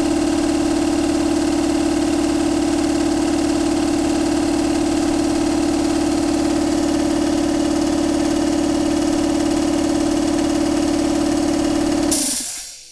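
Speedair electric air compressor running steadily with a strong hum. About twelve seconds in it stops with a short burst of air hiss and runs down.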